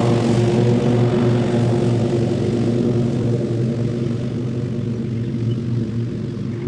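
An engine running at a steady speed, a constant low drone that slowly fades.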